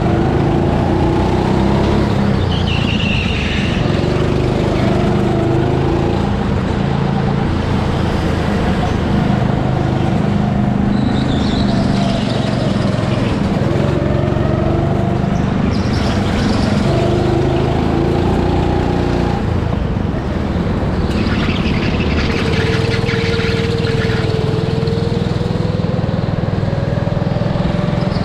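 Go-kart motor heard onboard while racing, its pitch rising and falling again and again as the kart speeds up and slows through the corners.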